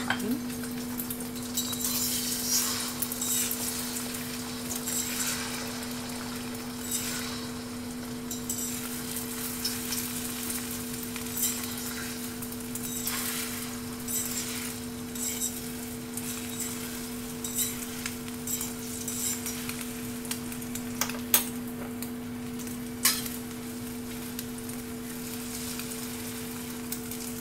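Beaten eggs frying in hot oil in a stainless steel wok, sizzling, while a fork stirs and breaks them up, scraping and clinking against the wok, with two sharper clinks late on. A steady low hum runs underneath.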